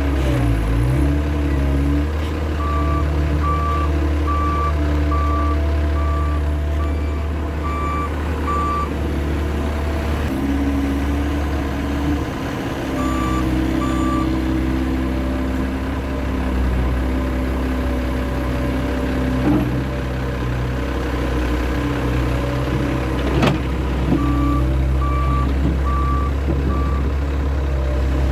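Case skid steer loader's engine running steadily at work, with its reversing alarm beeping in three spells as the machine backs up. There are a couple of sharp knocks late on.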